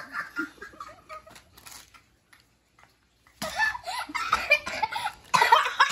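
Laughter and excited wordless exclamations from a boy and adults, in two stretches with a near-silent pause of about a second between them.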